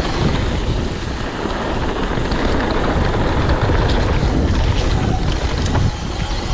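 Wind buffeting the microphone of a mountain biker's camera on a fast downhill run, over the low rumble of the bike on the dirt trail, with a few light clicks and rattles.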